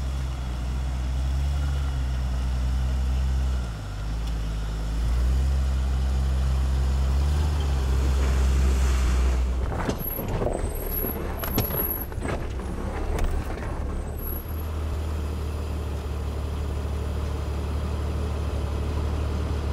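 Lifted Jeep Cherokee's engine running, its pitch shifting up and down as it moves along the trail. About halfway through come several knocks and clicks. The engine then settles into a steady idle.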